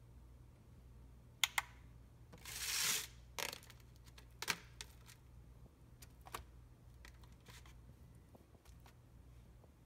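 Light clicks and taps from a clear plastic clamshell container and a small digital kitchen scale being handled, with one brief rustling swell about two and a half seconds in, over a faint low hum.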